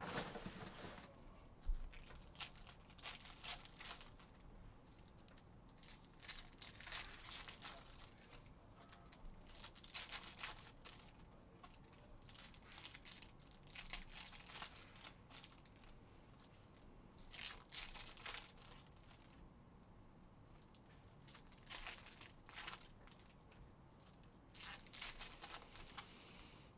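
Foil trading-card pack wrappers of 2021 Panini Phoenix football being torn open and crinkled by hand, in short crackly bursts every few seconds.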